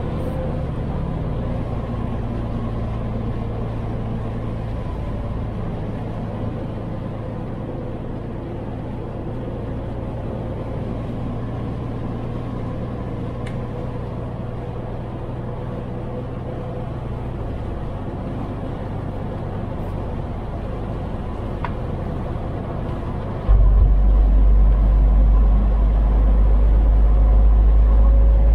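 Truck engine and road noise heard from inside the cab while driving, a steady low drone. Near the end the low rumble suddenly becomes louder and deeper and stays that way.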